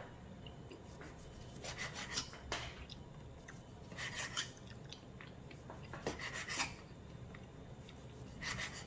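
Kitchen knife sawing through a thick seared beef steak on a plastic cutting board: four short rounds of rasping strokes, about two seconds apart, as each slice is cut.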